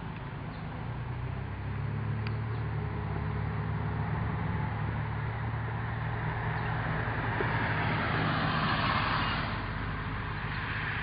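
A car driving past on the road, its tyre and engine noise swelling to a peak about eight or nine seconds in and then fading, over a steady low rumble.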